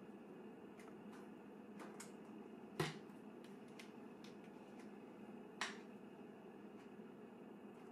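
Wax crayons being handled and set down on a hard tabletop and board: a scatter of light clicks and taps, two sharper ones about three seconds in and again past the middle, over faint room hiss.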